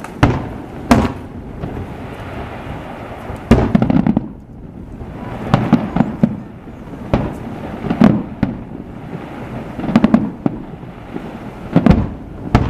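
Aerial fireworks shells bursting one after another, about ten sharp bangs in irregular succession, each followed by a low rumbling echo.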